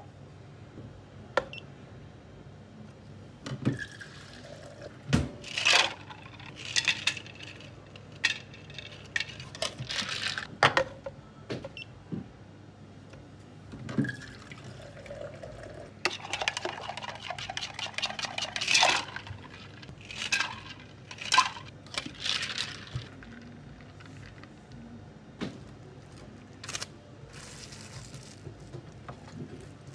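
Bubble tea being made at a counter: plastic cups, a shaker and tools clicking and knocking on the wooden counter, with liquid pouring. About halfway through there is a few seconds of quick rattling as the drink is shaken.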